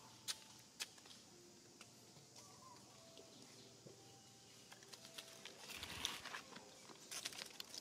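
Dry fallen leaves rustling and crackling under footsteps on hard ground, becoming busier in the last two seconds with many small crackles. Two sharp clicks come in the first second.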